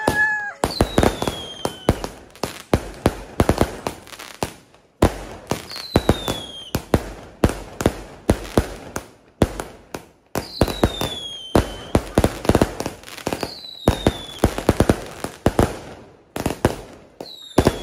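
Multi-shot aerial fireworks going off: quick clusters of sharp bangs and crackles, with a short falling whistle every few seconds.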